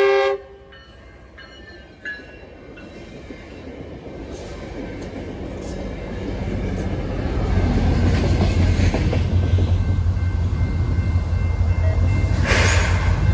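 The end of a Metrolink train's horn blast cuts off just after the start, then the commuter train passes close by on the near track. Its low rumble of wheels on rail builds over several seconds and then holds steady, with a short rushing burst near the end.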